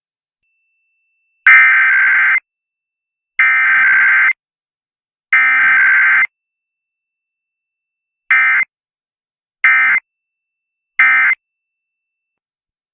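Emergency Alert System SAME data tones: three raspy, buzzing digital header bursts of about a second each, then three short end-of-message bursts. No attention tone comes between them, as in an EAS test transmission.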